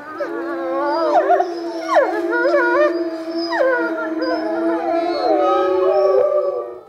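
A chorus of grey wolves howling, several overlapping long calls that slide up and down in pitch, fading out near the end.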